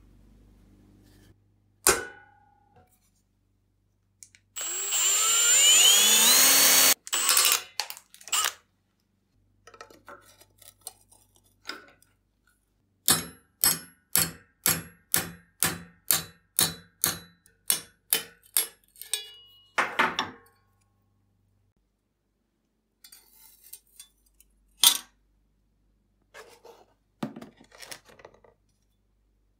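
Workshop tool sounds on metal: a sharp click, then a power tool running for about two seconds with a rising whine, followed by a few knocks. Then a run of about fourteen steady hammer blows, roughly two a second, ringing slightly, and a single sharp clank near the end.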